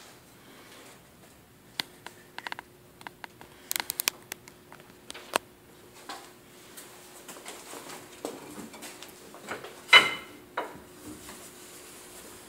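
Scattered light clicks and taps, then one louder knock about ten seconds in, over a faint steady hum.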